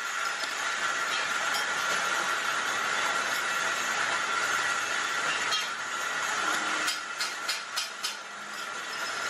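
Traub automatic lathe running, turning small metal parts under streams of coolant: a steady hiss with a high whine, and a quick run of about five clicks around seven to eight seconds in.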